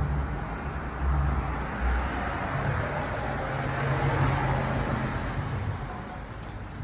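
Street traffic noise with a low rumble, swelling as a vehicle passes about four seconds in.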